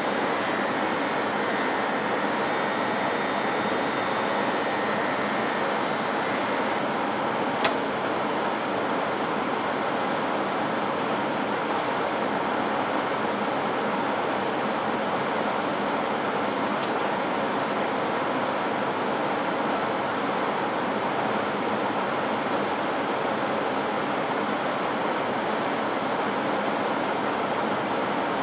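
Steady rushing airflow of a laboratory hood's blower. For the first several seconds an electric hair clipper buzzes over it, then cuts off suddenly, and a sharp click follows about a second later.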